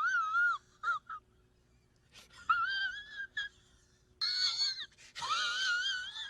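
Funny laugh sound effect: a very high-pitched, wheezy laugh whose pitch wobbles up and down, coming in several bouts with short breaks, the longest near the end.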